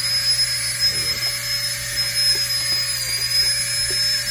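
FLEXTAIL Tiny Pump, a small rechargeable electric air pump, running at full speed: a steady high-pitched motor whine over a rush of blown air. The pitch dips slightly about three seconds in.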